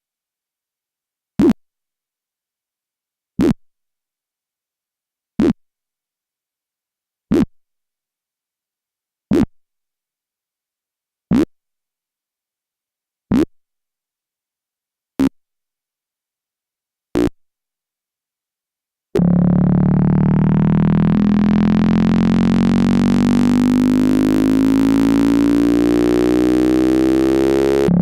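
KORG iMS-20 synthesizer making a motorcycle effect: nine short blips about two seconds apart, then, after a short gap, a loud steady buzzing engine-like tone whose pitch slowly climbs.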